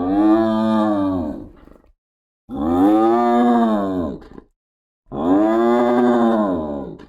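Hyena calling: three long, drawn-out calls, each rising and then falling in pitch, about two seconds apiece with short gaps between.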